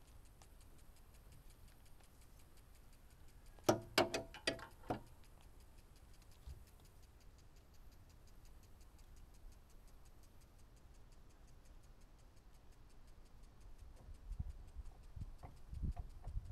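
Hand work on an excavator's fuel filter and engine parts: a quick cluster of sharp clicks and taps about four seconds in, and a few dull knocks near the end, over a faint, even ticking.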